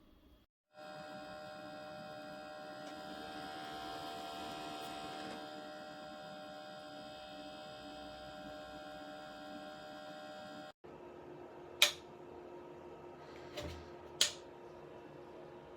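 Cool-mist humidifier running with a steady electrical hum made of several tones. After a cut about eleven seconds in, a lower steady hum continues, broken twice by a short, sharp click.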